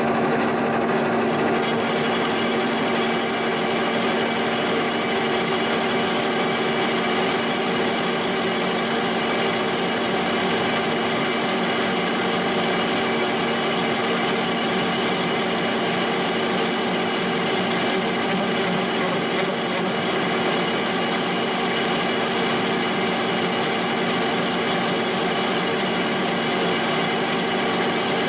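Milling machine running a milling cutter through the cast housing of a mower conditioner gearbox, machining out the broken bearing support down to a flat bottom. It makes a steady cutting noise over a constant hum.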